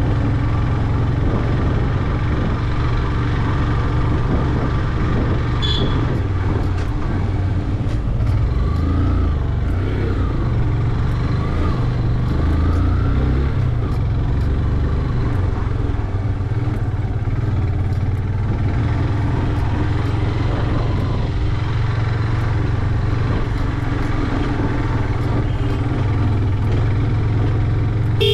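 Yamaha motorcycle engine running steadily, with a continuous low rumble; its pitch wavers up and down briefly between about eight and thirteen seconds in.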